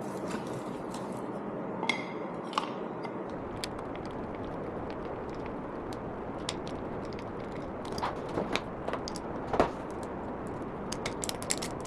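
Small metal nuts and bolts clicking and clinking as they are handled and fitted, a couple of the early clinks with a short metallic ring and the clicks coming thicker near the end, over a steady background hiss.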